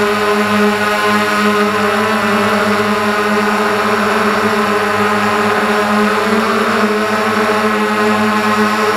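Multirotor drone's electric motors and propellers humming steadily close to the onboard camera, the pitch shifting slightly midway as it manoeuvres.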